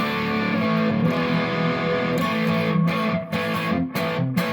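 Electric guitar played through a Fender Bassbreaker 30R tube amp on its middle channel, gain up to about 9. Overdriven chords are left ringing, then restruck several times in the second half.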